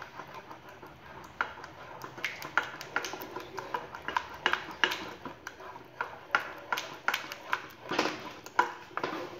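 Wooden spatula stirring thick gram-flour and buttermilk batter in a nonstick saucepan, knocking and scraping against the pan in irregular taps, a couple a second. The loudest taps come near the end. The batter is thickening over the heat and is being stirred without a break so that it does not stick.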